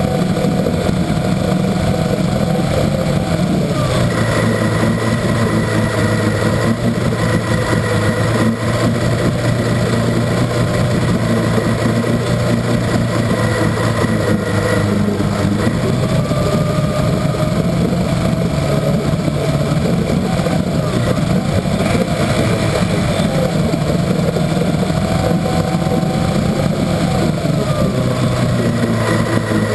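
1964 Evinrude Starflite two-stroke outboard motor running steadily with its lower unit in a test barrel of water. Its speed shifts slightly about four seconds in and again around sixteen seconds.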